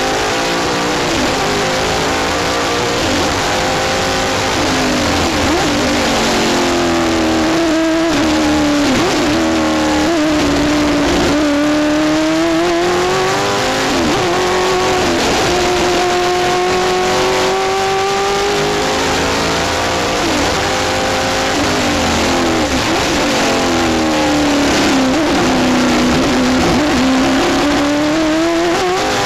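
Rover Vitesse sports sedan race car's engine at racing pace, heard from inside the cockpit, its pitch climbing and dropping again and again as the car accelerates and slows through the corners of a lap.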